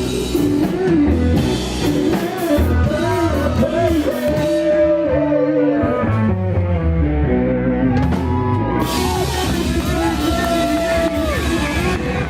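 Rock band playing: drum kit, electric guitar, bass and a melodic vocal or guitar line. The cymbals drop out for a few seconds around the middle and come back in near the end.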